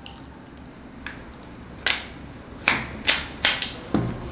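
Sharp clicks and knocks of an airsoft rifle's stock end cap being fitted back onto the battery tube and locked, its spring pin pressed in: about five clicks in the second half after a quiet start.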